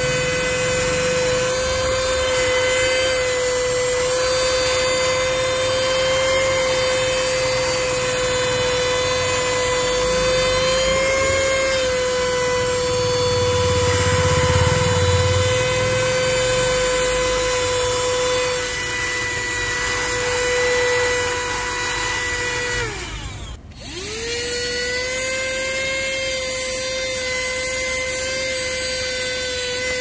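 Handheld 12-volt car vacuum cleaner running, its motor making a steady high whine. There is some low rumble while the nozzle works the rubber floor mat. About three-quarters of the way through, the motor winds down, cuts out for a moment and spins back up to full speed.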